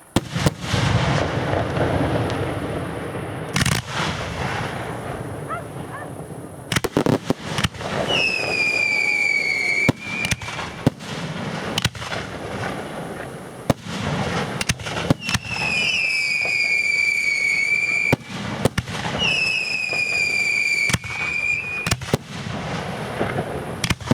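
Fireworks going off: a steady run of sharp cracks and deep bangs, with three long, slightly falling whistles from whistling effects about a third of the way in, around two-thirds in and near three-quarters of the way through.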